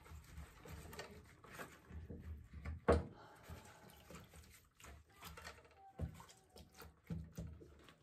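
Wet handling sounds as a soaked cloth is worked out of a humidifier's plastic base over a tub of water, with scattered small plastic knocks and one sharper knock about three seconds in.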